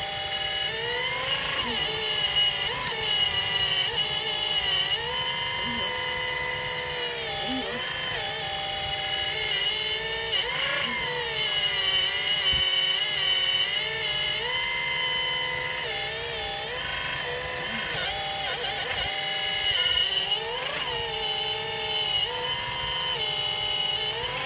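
Electric motor and hydraulic pump of a radio-controlled scale model excavator whining. The pitch rises and falls again and again as the boom, arm and bucket are worked, holding steady for a second or two between changes.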